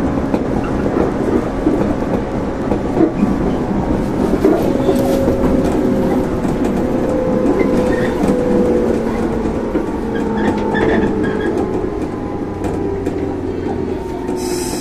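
115 series electric train's MT54 traction motors whining from inside the driver's cab, the pitch sliding steadily downward as the train slows toward a station, over the rumble and clack of wheels on rail joints.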